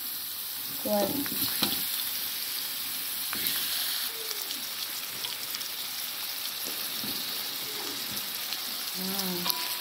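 Spice paste sizzling in a hot wok as raw chicken pieces are added and pushed about with a metal spatula, with a steady frying hiss and a few light knocks.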